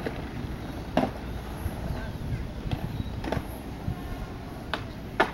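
Skateboard wheels rolling over concrete with a steady low rumble, broken by five sharp clacks of the board, the loudest just before the end.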